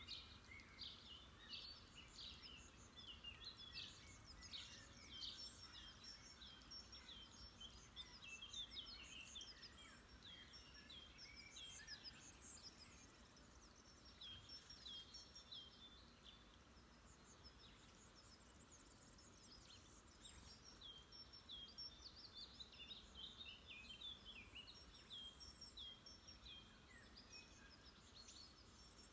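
Faint birdsong: several small birds chirping and twittering with many short, high notes, including runs of quickly repeated down-slurred notes near the middle and again later.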